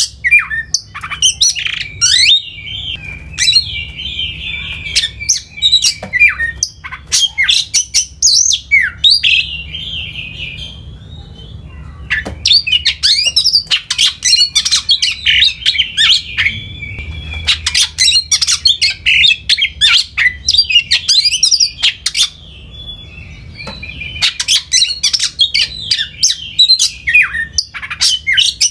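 A songbird singing loud, rapid chirps and trills in long run-on phrases, with two quieter stretches between them.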